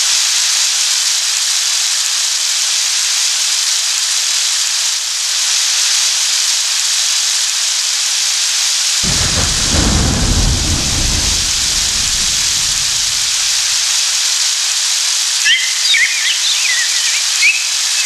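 Keyboard synthesizer sound effects: a steady hiss of rain or rushing water, with a deep thunder rumble that starts suddenly about halfway through and dies away over several seconds, then short bird chirps near the end.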